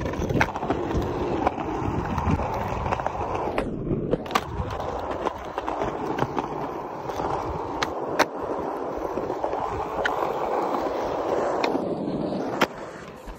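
Skateboard wheels rolling over a rough, worn court surface in a steady rumble, with scattered clicks from the board. Twice the rolling cuts out briefly, about four seconds in and again near the end, and a sharp clack follows each time; the second is an ollie, the board landing back on the ground.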